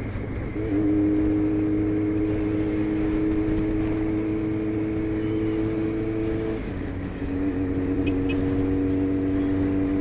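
Honda CBX 750 motorcycle's inline-four engine running at steady cruising revs under road and wind noise. About two-thirds of the way through, the engine note dips briefly, then holds steady again a little lower in pitch.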